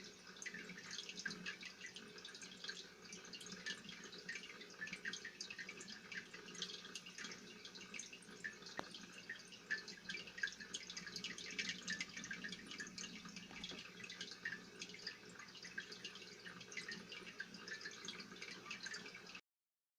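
Aquarium water bubbling and trickling: a dense, steady patter of small splashes and drips that cuts off abruptly near the end.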